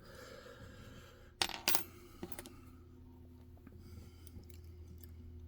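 Small metal lockpicking tension tools clinking: two sharp metallic clinks about a second and a half in, close together, then a lighter tick. A low steady hum runs underneath.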